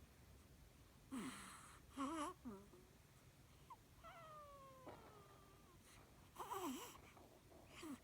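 Weird vocal noises: short squeaky calls that bend in pitch, and a longer falling whine about four seconds in.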